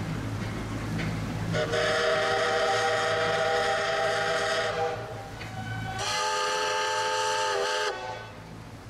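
Steam locomotive whistle sounding two long blasts, each a steady chord of several notes: the first about three seconds long, the second about two seconds, dipping slightly in pitch just before it cuts off.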